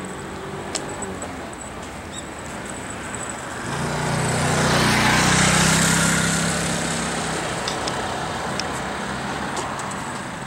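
Motor scooter passing close by: its small engine swells in about four seconds in, is loudest a second or two later, then fades away.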